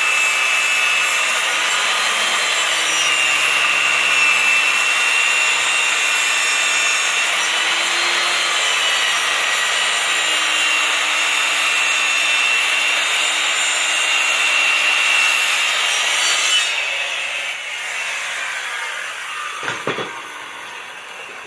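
Makita 7¼-inch circular saw ripping a 2×10 cedar board lengthwise, the motor's whine dipping and recovering as the blade loads in the cut. About sixteen seconds in the cut ends and the whine falls away as the blade spins down, with a single knock near the end.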